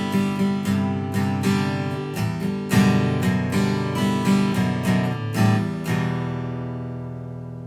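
Acoustic guitar music strummed in a steady rhythm, ending on a last chord about six seconds in that rings on and fades away.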